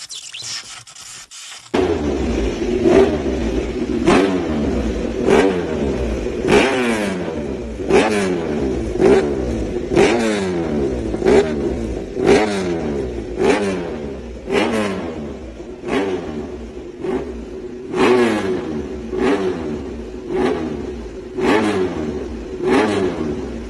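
Sport motorcycle engine idling and being revved in short throttle blips about once a second, each rev rising sharply and then falling away. A brief whoosh plays at the start, and the engine comes in about two seconds in.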